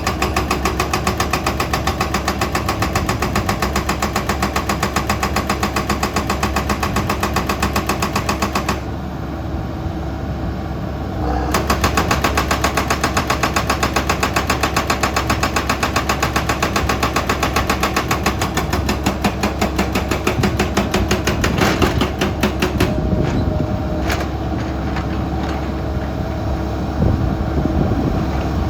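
Excavator diesel engine running under work, with a fast, even pulsing beat. The pulsing fades out about nine seconds in and comes back strongly a couple of seconds later.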